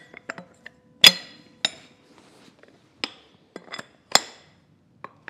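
Steel extension tubes of a 10-ton hydraulic body-repair ram clinking and knocking as they are handled and fitted together: about half a dozen sharp metallic taps that ring briefly, the loudest about a second in.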